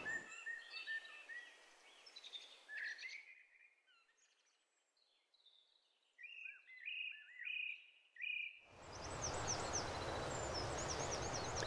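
Small songbirds chirping, faintly, with a run of four or five short repeated notes in the middle. About nine seconds in, a steady rushing hiss comes up under further high chirps.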